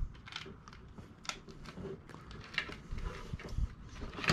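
Scattered light clicks and taps of handling as a wire with bare terminal pins is fed through a hole in a plastic steering column shroud.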